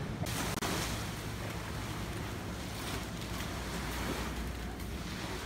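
Wind buffeting the microphone as a steady low rumble with gusts of hiss, over the wash of small sea waves.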